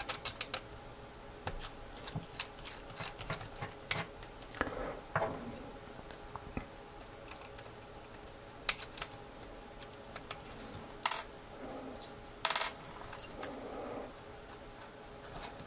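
Precision screwdriver undoing tiny screws from a small gimbal's motor arm: scattered light clicks and ticks of the bit in the screw heads and of small plastic and metal parts being handled. Two louder knocks come a second and a half apart, about two-thirds of the way through.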